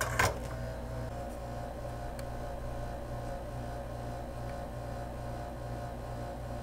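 Quiet background music: a steady low drone with a soft pulse about twice a second. One sharp click sounds about a quarter second in.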